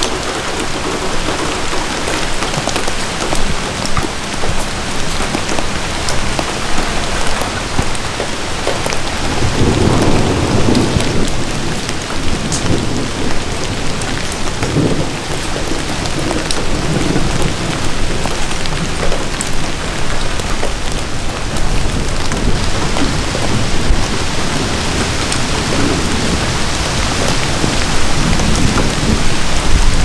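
Steady rain falling through a forest, with scattered drops ticking nearby. About a third of the way in a low rumble of distant thunder rolls in and slowly fades.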